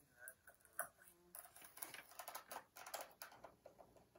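Faint, scattered clicks and taps of plastic Play-Doh toy parts being handled.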